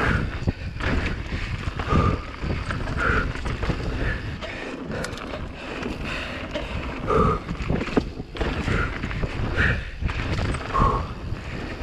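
Giant Reign Advance enduro mountain bike descending a rough trail at race pace: tyres rumbling over dirt and the frame and drivetrain rattling with irregular knocks from bumps, mixed with wind on the chin-mounted camera's microphone.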